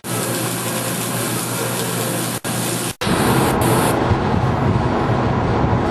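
A welding arc hissing steadily over a low electrical hum for about three seconds. After a sudden cut there is a steady rushing noise with a low rumble from aboard a ship at sea.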